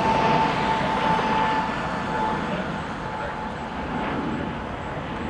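Jet aircraft engine noise with a steady whine, fading steadily as the plane moves away.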